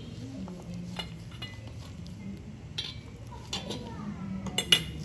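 A few sharp clicks and light clinks, the loudest pair near the end, over a low steady background hum.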